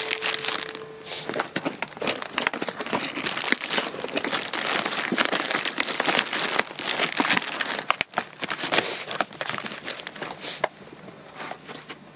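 Thin plastic bags crinkling and rustling as they are handled: a dense, irregular crackle that dies down about a second and a half before the end.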